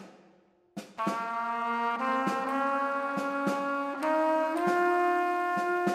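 Background music: held brass chords that shift in pitch a few times, over regular light percussion strikes, starting about a second in after a brief silence.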